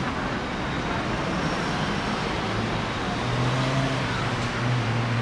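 City street traffic noise, with a motor vehicle's engine hum coming in about halfway through and growing louder near the end as it runs close by.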